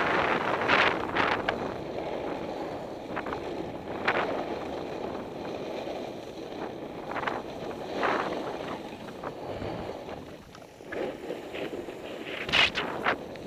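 Skis scraping and carving over hard-packed snow, with wind rushing on the helmet camera's microphone and a sharper edge scrape at each turn. Near the end comes the loudest moment, a quick cluster of scrapes and knocks as the skier crashes.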